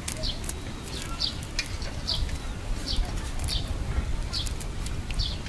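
A bird chirping over and over, a short falling note about every three-quarters of a second. Between the chirps come small sharp crackles of boiled duck egg shells being cracked and peeled by hand.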